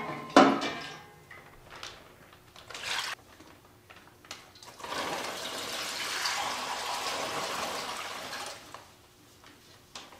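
Brine poured from a red enamel stockpot into a plastic zip-top bag around a brisket flat, a steady splashing pour lasting about four seconds from halfway through. Before the pour, a sharp clank of the scoop against the pot right at the start and a few lighter knocks.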